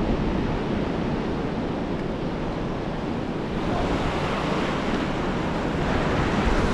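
Ocean surf washing onto the beach, a steady rushing wash with wind buffeting the microphone; it swells a little louder from about four seconds in.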